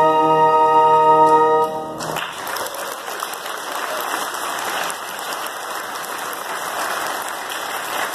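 A string orchestra holds the final chord of a hymn, which cuts off about two seconds in; the audience then applauds steadily.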